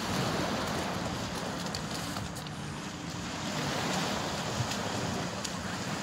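Small sea waves washing onto a pebble beach, the surge swelling and easing over a few seconds, with wind buffeting the microphone and a few faint clicks.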